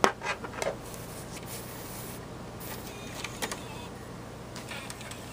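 A few sharp clicks and a brief mechanical whir from a computer's DVD drive tray being loaded with a disc, over a steady low hum from the PC.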